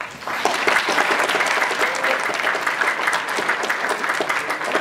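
Audience applauding, breaking out suddenly and keeping up dense, steady clapping.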